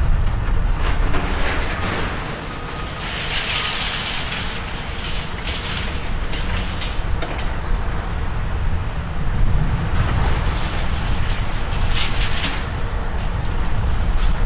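Demolition machinery at work: a heavy diesel excavator engine running with a steady low rumble. Bursts of metal scraping and clattering from sheet-metal roofing and debris being torn and moved come a second or so in, again around four seconds in, and near the end.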